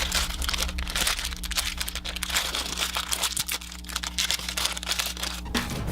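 Plastic candy wrapper crinkling as it is handled and opened, with many small crackles.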